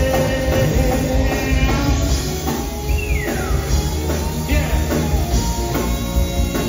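Live band playing: electric guitars, drum kit and keyboards together over a steady beat, with one note sliding downward about three seconds in.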